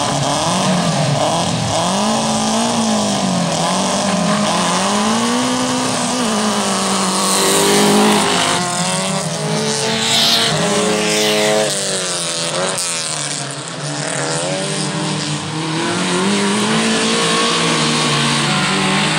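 Race engines of 2000cc-class stock car cross cars running hard. Their pitch climbs and drops over and over as the drivers work the throttle and shift gears, and from about eight seconds in several cars are heard at once, their rising and falling notes overlapping.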